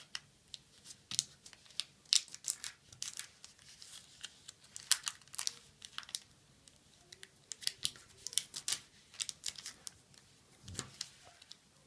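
Square of origami paper being folded by hand, its edges brought to the centre and the creases pressed flat. It makes irregular crisp crackles and rustles, with a low thump near the end.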